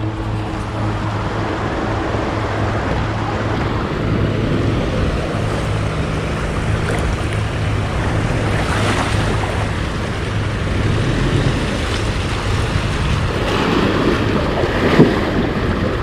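River water rushing over rocks, with wind buffeting the microphone and a Mitsubishi Montero Sport SUV's engine running low and steady underneath. Near the end there is one short knock.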